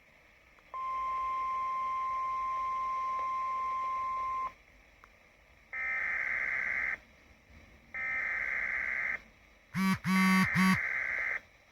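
Weather radio emergency alert signals: a steady 1050 Hz alert tone held for nearly four seconds, then three harsh one-second bursts of SAME digital header data about two seconds apart. The last burst is overlapped by a lower pitched beeping.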